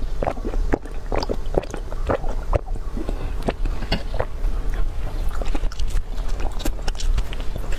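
Close-miked eating sounds: a sip of drink at the start, then biting into and chewing flaky puff pastry, with many quick crisp crackles.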